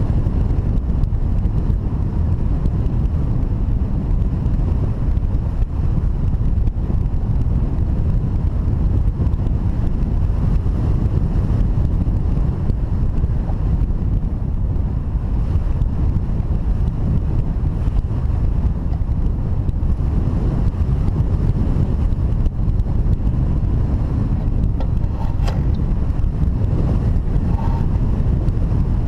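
Wind noise on the microphone: a steady, loud low rumble of rushing air, with one brief click near the end.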